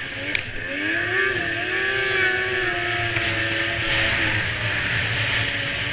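2002 Yamaha SX Viper snowmobile's two-stroke triple running under way, the engine note climbing about a second in, holding steady, then dipping near the four-second mark as the throttle is eased. A hiss of track and snow noise runs under it, with one sharp click near the start.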